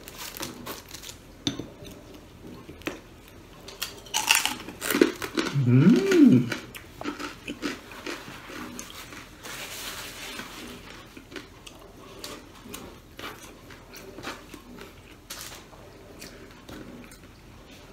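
Eating by hand: chewing and mouth noises with many small clicks and taps of food and dishes. About six seconds in comes the loudest moment, a short hum that rises and falls in pitch.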